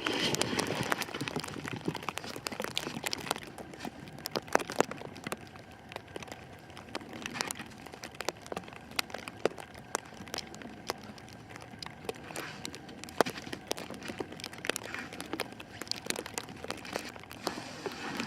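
Plastic wrap being pulled off the roll and stretched around a pole frame, crackling and crinkling in many irregular sharp clicks.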